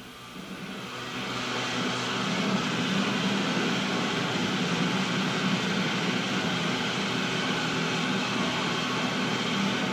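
A steady rushing hum with a low droning tone underneath, fading in over the first couple of seconds and then holding even.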